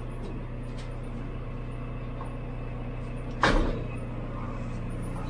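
Farm vehicle's engine running steadily at idle-like speed, with one loud clunk about three and a half seconds in.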